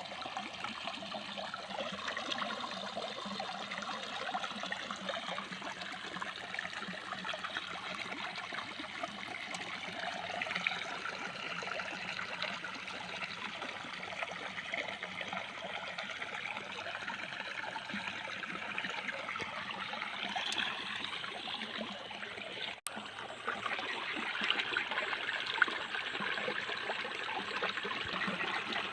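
Steady running, trickling water. It cuts out for an instant about 23 seconds in and comes back slightly louder.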